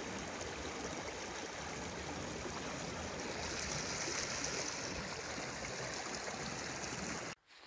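Shallow stream running over stones: a steady rush of flowing water that cuts off suddenly just before the end.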